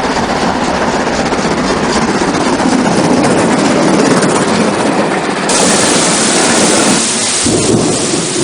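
Hornby model-railway electronic sound-effects box playing a loud, continuous hissing train effect. Its tone shifts about five and a half seconds in and again near the end.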